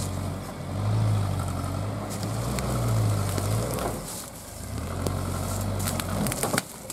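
GAZ Sobol 4x4 van's engine pulling in low gear as the van crawls over rocks. The revs rise and fall twice, and a few sharp knocks come near the end.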